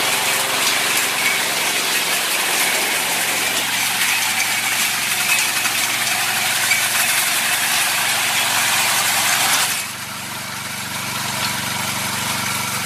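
Small single-cylinder petrol engine of a walk-behind mini rice reaper running steadily. About ten seconds in, the sound abruptly becomes quieter and duller, then runs on steadily.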